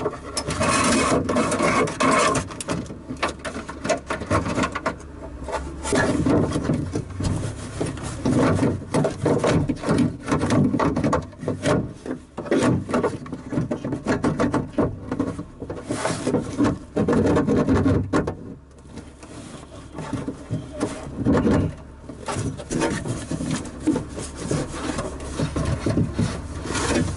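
Irregular scraping, rubbing and clicking of a door latch and lock actuator assembly being worked into place inside a car door, with a short lull about two-thirds of the way through.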